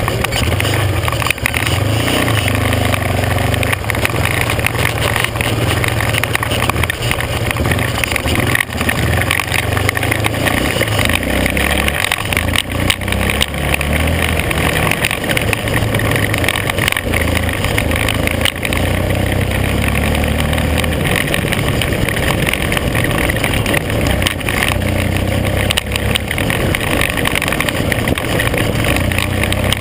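Off-road vehicle engine running under changing throttle, with steady wind and road noise from riding over a dirt and gravel track.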